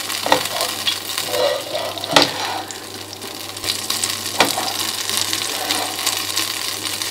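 Oil heating in a nonstick frying pan, sizzling steadily over leftover bits of tomato, with a few sharp clicks.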